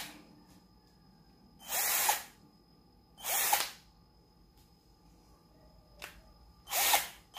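12-volt cordless drill run in three short trigger bursts, each lasting about half a second as the motor spins up and winds down, with a small click shortly before the last burst.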